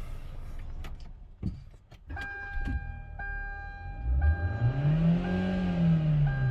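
A Hyundai car's engine is revved in park: it climbs to about 5,000 rpm and sinks back. Under it, a dashboard warning chime beeps about once a second.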